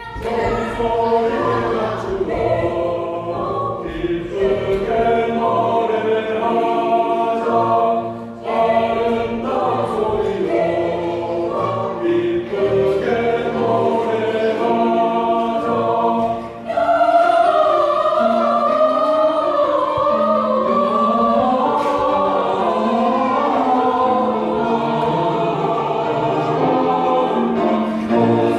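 Church choir singing a Christmas cantata song in several parts, with short breaks between phrases about eight and sixteen seconds in, and fuller and louder from then on.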